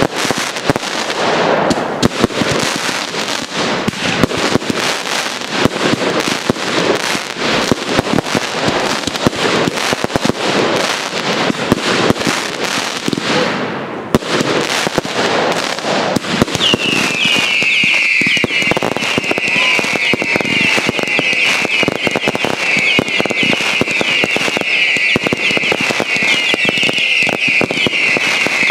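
Fireworks display: a dense, continuous run of bangs and crackling shell bursts. A little past halfway a high, shrill whistling from many overlapping whistle effects sets in and keeps going over the bangs.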